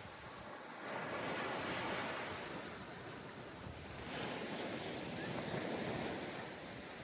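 Ocean surf washing onto a sandy beach: a steady hiss that swells twice as waves break and run up the shore.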